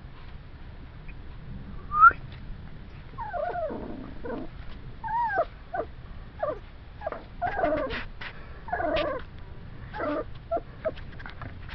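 Playing puppies giving a string of short, high whines and yips, many falling in pitch, with one sharp loud yip about two seconds in and the calls coming thick from about three seconds on.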